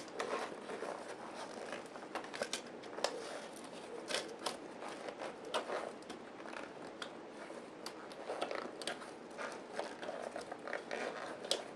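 An RC car's rubber tire and foam insert being pushed and worked onto a beadlock wheel by hand: faint, irregular clicks and crackles of handling, with no steady rhythm.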